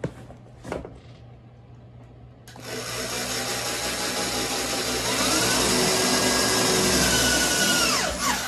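Corded electric drill boring a hole through a wood wall panel. The motor starts about two and a half seconds in and runs steadily under load, its whine rising in pitch about halfway through, then winds down as the trigger is released near the end.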